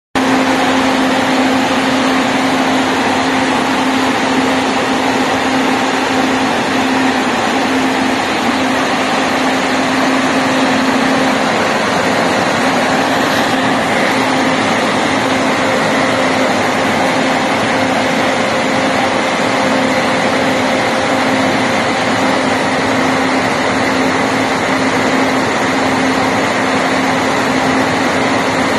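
Corn grain dryer running: its large axial fans and gas burner give a steady, loud rush of air with a constant low hum. A faint high whine joins about halfway through.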